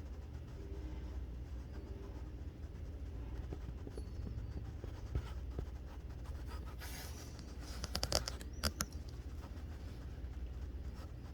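Handling noise of a hand-held phone: scratching and rubbing on the phone over a steady low hum, with a cluster of sharp clicks about eight seconds in.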